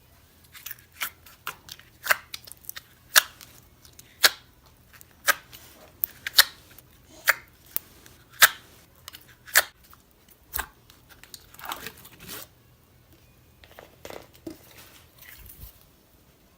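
Large slimes being kneaded and mixed by hand, giving sharp wet pops and clicks about once a second, with softer squishing in the last few seconds.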